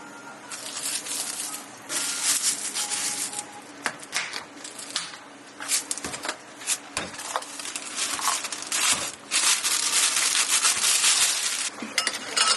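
Bursts of rustling, crinkling noise with scattered sharp clicks and knocks as cafe items are handled during drink preparation.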